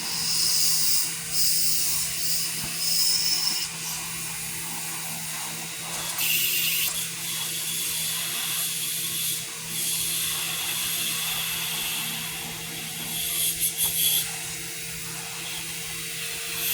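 Pressure washer spraying: the jet's high hiss starts and stops several times over the steady hum of the machine.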